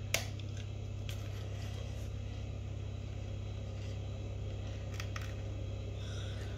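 A bite into a yogurt-coated cereal bar, a single sharp click just after the start, then quiet chewing with two faint clicks about five seconds in, over a steady low hum.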